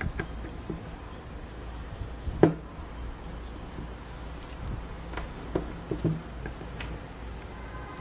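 Scattered small knocks and clicks of parts being handled during assembly, with one sharper knock about two and a half seconds in and a few more near six seconds, over a steady low hum.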